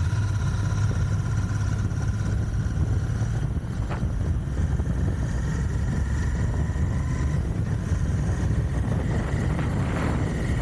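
Royal Enfield Continental GT 650's 648 cc parallel-twin engine running through its stock exhaust while being ridden, a steady deep drone with a slow rise in pitch over the second half. There are short sharp clicks about four seconds in and near the end.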